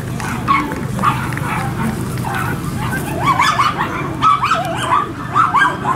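A dog yapping: short, high-pitched barks, several a second, coming thicker and louder from about three seconds in.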